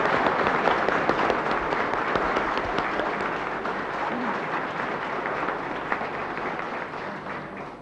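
Audience applauding in a hall, a dense clapping that slowly dies away over several seconds.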